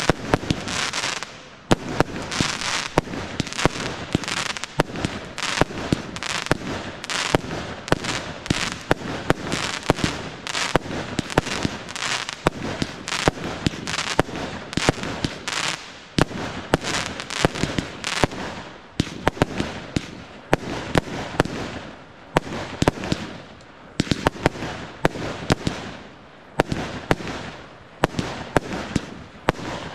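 Fireworks display: shells launching and bursting in quick succession, with sharp bangs several times a second and hardly a pause.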